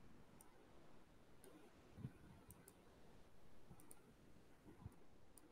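Near silence with faint scattered clicks: several sharp little ticks spread across the few seconds and two soft low taps.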